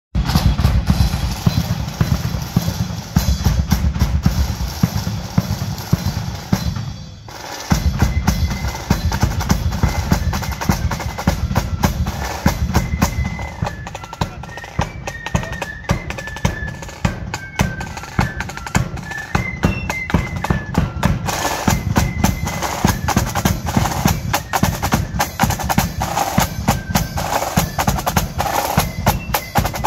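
Marching flute band: snare and bass drums beat a march, pausing briefly about seven seconds in, and the flutes come in with a melody over the drums about twelve seconds in.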